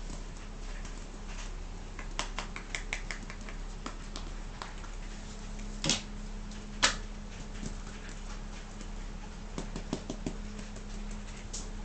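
Scattered light taps and scratches of a kitten's paws and claws on a large ball and a hard floor, with two louder knocks about six and seven seconds in.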